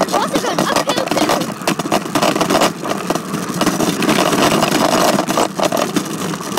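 Bicycle being ridden: a loud steady rush with many small knocks and rattles.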